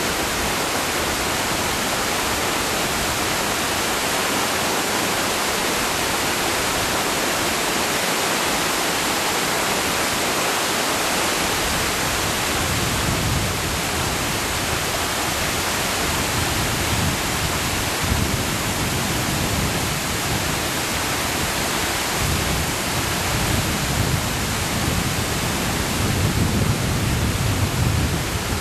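Whitewater of Amicalola Falls rushing over rocks at the top of the falls: a loud, steady, even hiss. From about halfway through, uneven low buffeting comes and goes beneath it.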